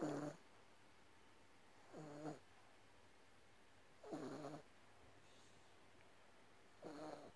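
A sleeping dog snoring: four short snores with a clear pitch, about two seconds apart.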